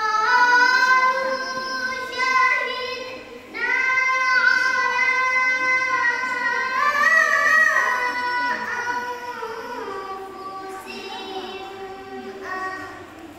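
A young girl chanting the Quran in melodic tilawah style: two long held phrases, the second with a wavering ornament in the middle and sinking lower toward its end.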